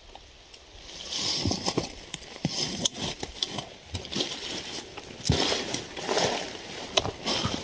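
Close rustling and scuffing of clothing and gear as a person shifts about beside the microphone, in irregular bursts with several sharp clicks.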